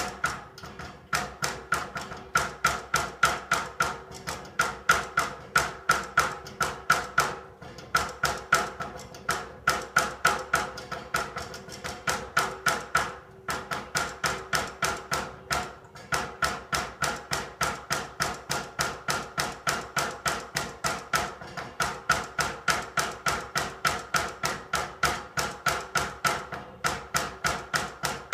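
Rapid, steady knocking on central-heating pipes, about three to four knocks a second with a few brief pauses. Each knock leaves a ringing tone.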